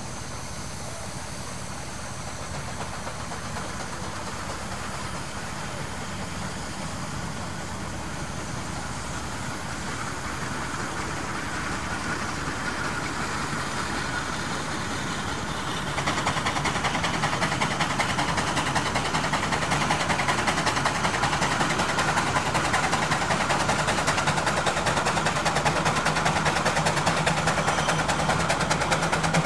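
An engine running with a fast, even beat, growing gradually louder and then jumping louder about halfway through.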